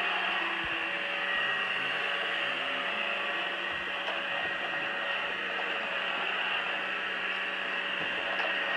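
Robot vacuum cleaner running steadily over carpet, a constant machine noise with a faint low steady tone under it.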